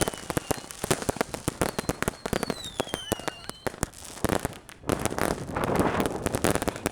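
Fireworks and firecrackers going off in a rapid, crackling string of pops, with a whistle falling in pitch a couple of seconds in and a denser, louder crackling rush from about five seconds in.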